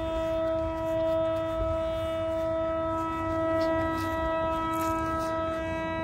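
Buried-cable locator receiver sounding a steady, unchanging buzzy tone while it is swept for the signal induced on an underground wire.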